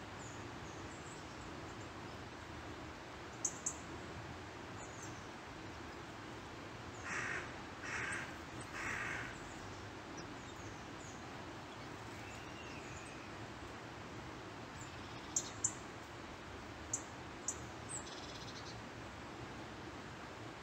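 Crow cawing three times, about a second apart, some seven seconds in, over a steady woodland background hiss. A few short, sharp high notes come before and after the caws.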